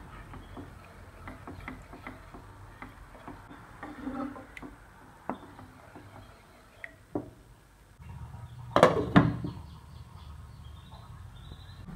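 Wooden spoon stirring thick curry gravy in a pan, with light scrapes and taps against the pan. A little before nine seconds in, a glass lid clatters down onto the pan, the loudest sound, and a low steady hum follows.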